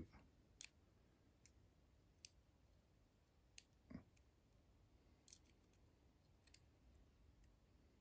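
About seven faint, irregularly spaced clicks of steel tweezers against a brass lock cylinder as springs and pins are picked out of its chambers.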